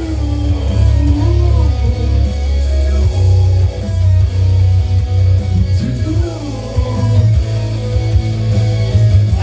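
Rock music instrumental passage: an electric guitar plays a lead line with bending notes over a heavy, steady bass.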